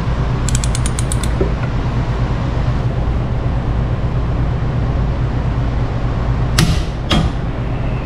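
A large click-type torque wrench on a rear axle nut. Near the start its ratchet gives a quick run of small clicks. Near the end come two sharp clicks about half a second apart, as the wrench snaps over at its 253 foot-pound setting. A steady low hum runs underneath throughout.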